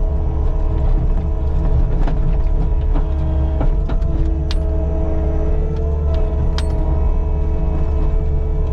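Caterpillar 299D2 compact track loader's diesel engine running steadily under work while spreading and back-dragging gravel, with a few sharp clicks and knocks mixed in.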